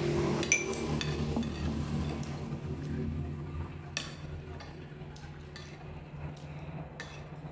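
Eating utensils clinking and scraping against ceramic bowls and a serving plate, with a sharp ringing clink about half a second in and another hard clink about four seconds in. A low steady hum runs underneath.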